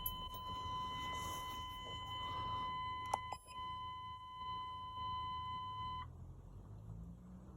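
A steady electronic beep tone holding one pitch for about six seconds, then cutting off suddenly, with a faint click partway through.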